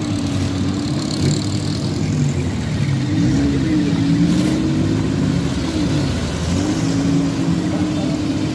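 Engines of modified off-road 4x4s driving slowly past one after another, the revs rising and falling.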